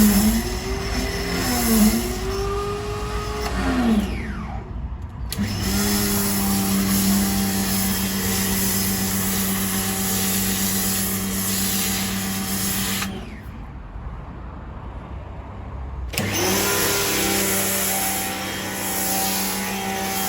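AVA P60 electric pressure washer's motor and pump running while spraying snow foam through the foam lance. For the first few seconds the pitch wavers and splutters, with air being drawn through the lance's intake line. It then runs steadily, stops twice and starts again as the trigger is released and pressed.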